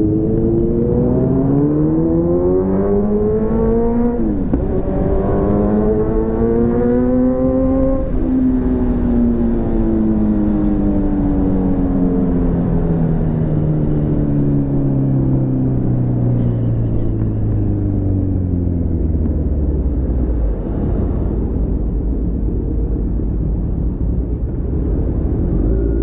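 Kawasaki Z900's inline-four engine pulling away with a rising note, shifting up about four seconds in and climbing again. The throttle then closes and the note falls slowly for about twelve seconds. It settles to a low, steady idle near the end.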